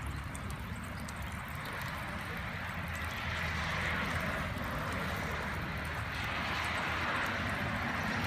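An engine running steadily at low speed, with a hiss that grows louder about three seconds in.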